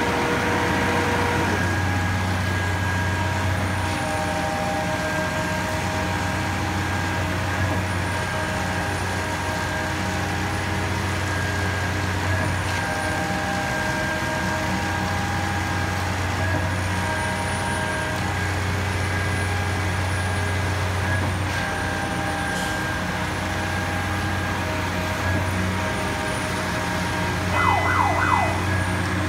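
Truck-mounted Putzmeister 38-metre concrete boom pump running under load: a steady diesel drone whose tones shift in a cycle of about four seconds as the pump strokes. A few quick high chirps come near the end.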